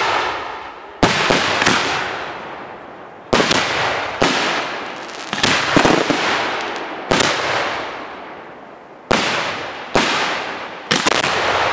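Fireworks display: aerial shells bursting in quick succession, about a dozen sharp bangs, each followed by a fading, rolling tail.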